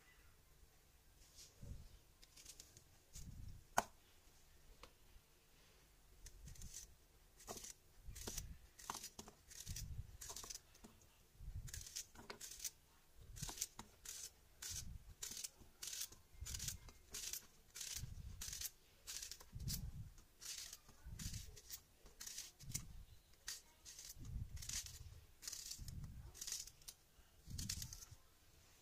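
Small kitchen knife slicing through a raw zucchini held in the hand, a quick crisp cut for each round, with soft thumps as the slices land on the wooden board. The cuts are sparse at first and settle into a steady pace of about one or two a second from about six seconds in.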